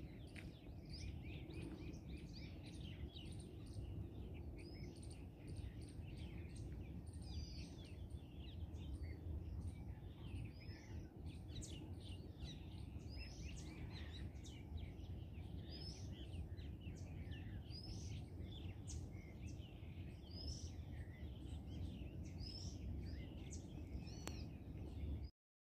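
Many birds chirping and calling in a busy overlapping chorus, over a steady low rumble. The sound cuts off abruptly near the end.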